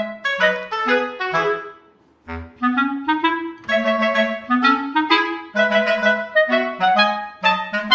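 Background music: a clarinet-like woodwind playing a lively melody of short notes, pausing briefly about two seconds in.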